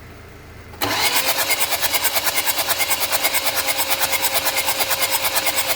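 2014 Hyundai Santa Fe engine being cranked by its starter motor, starting suddenly about a second in: a steady starter whine with rapid, even pulsing as the engine turns over without firing. It is a no-start, which the mechanic suspects may come from clogged injectors.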